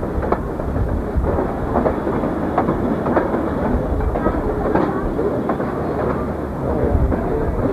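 Excursion train car rolling along the rails, heard from on board: a steady rumble with irregular clicks and clanks from the wheels and running gear.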